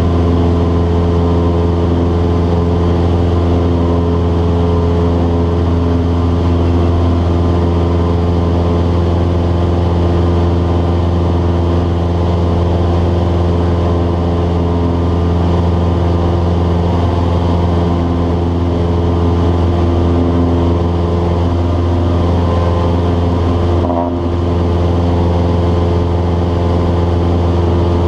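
Cessna 172's piston engine and propeller droning steadily in flight, heard from inside the cabin as a loud, even hum.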